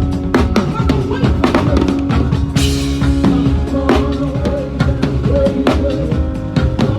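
A live band playing during a sound check: a drum kit with kick and snare keeping a steady beat under held keyboard and bass notes.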